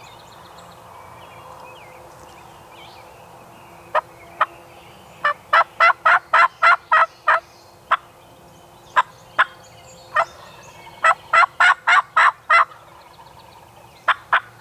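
Turkey yelping in runs of short, sharp notes, about three a second: a run of about ten notes, a few single notes, a second run of about six, then two more near the end.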